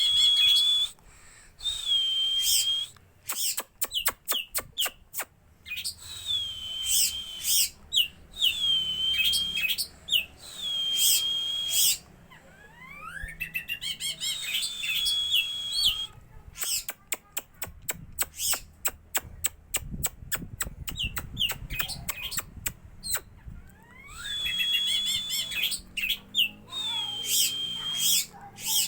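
Oriental magpie-robin (white-bellied kacer) singing a varied song. Long held whistles are broken up by fast runs of short clicking notes and a few rising slurred whistles.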